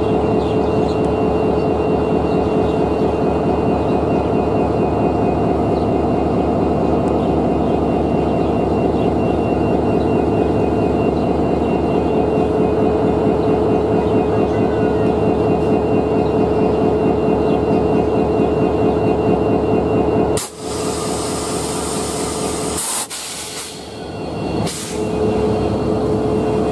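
Diesel-electric locomotive running steadily at a standstill: a loud, even hum with a steady tone and a fast regular pulse. About two-thirds of the way through the hum dips, and two loud hissing bursts follow a few seconds apart.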